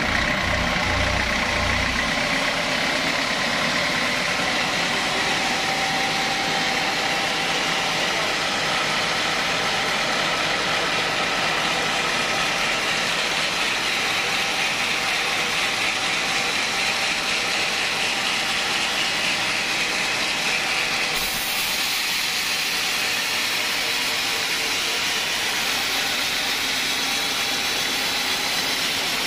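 Large belt-driven band sawmill running steadily, its blade sawing through a squared teak log, a continuous dense machine noise.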